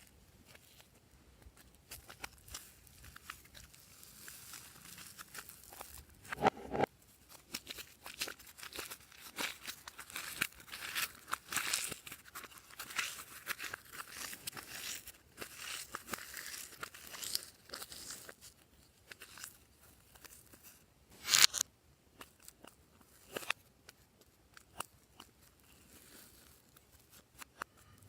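Close-up crinkling, crackling handling sounds with many small sharp clicks, and two louder knocks, one about six and a half seconds in and one about twenty-one seconds in.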